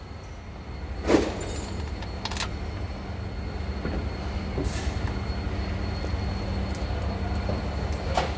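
Mercedes truck's diesel engine running steadily with a low rumble, with a sharp knock about a second in and a few lighter clicks after.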